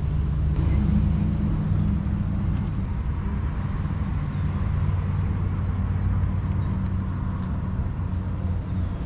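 A steady low engine hum, with faint crackling of a corn husk being peeled off a tamale.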